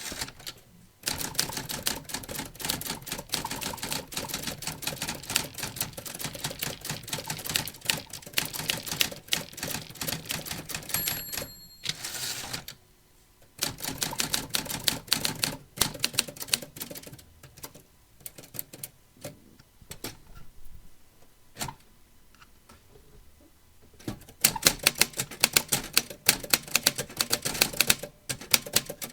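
Vintage manual typewriter keys striking in quick runs of sharp clacks. About eleven seconds in the line-end bell rings once, the signal that the carriage has reached the end of the line. The typing then turns sparse and fainter before a loud, fast burst near the end.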